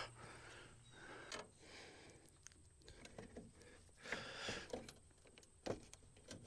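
Faint, scattered clicks and rustles of a plastic airbox being handled and pushed onto its rubber-grommeted mounts, with a slightly louder scrape about a second in and another around four seconds in.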